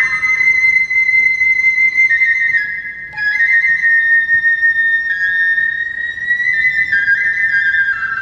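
Kagura flute (fue, a transverse bamboo flute) playing long, high held notes that step slowly down in pitch, with a brief break about three seconds in.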